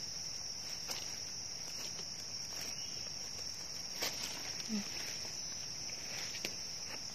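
Steady high-pitched drone of insects, with a few faint rustles and clicks from dry leaf litter being handled.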